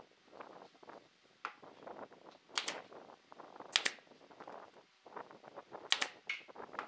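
Pneumatic brad nailer firing several sharp shots, with two in quick succession near the end, driving nails at the foot of wooden dowels set into a wooden base. Between the shots, wooden pieces are shifted and knocked on the bench.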